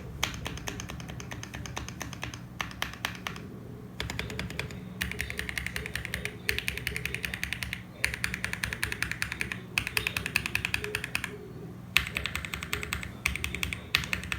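Typing on an EverGlide SK68 mechanical keyboard with lubed Gateron Yellow linear switches, a polycarbonate plate, foam-filled case and PBT keycaps. Keystrokes come in quick runs of clicks, broken by short pauses about three and a half and eleven and a half seconds in.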